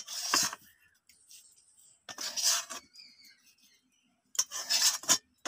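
A spatula scraping cooked semolina dough off the inside of a metal kadai onto a steel plate, in three short scraping strokes with pauses between them.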